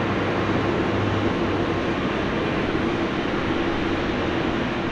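Boeing 747-8's GEnx jet engines running steadily at idle: a continuous rushing noise with a low, even hum through it.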